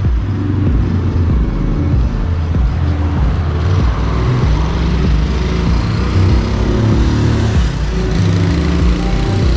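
Wind buffeting the microphone of a moving bicycle: a loud, uneven low rumble that carries on without a break.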